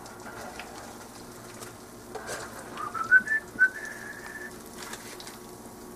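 A few short whistled notes stepping upward, ending in one held note, over a faint steady background hiss.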